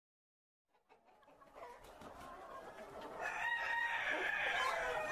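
A flock of Barred Rock chickens clucking and calling, fading in after about a second of silence and growing louder, with longer held calls in the last couple of seconds.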